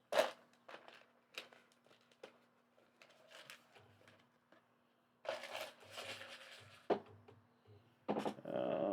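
Small plastic building pieces being handled and fitted together: scattered light clicks and taps, with a longer stretch of rustling about five seconds in and another short burst near the end as pieces are sorted through.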